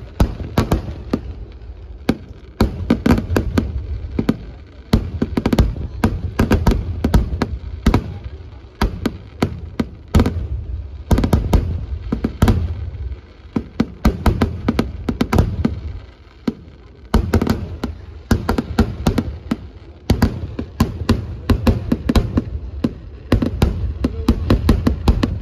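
Daytime fireworks: rapid volleys of shells bursting overhead, dense strings of sharp cracks over deep booms, coming in clusters with short lulls between them.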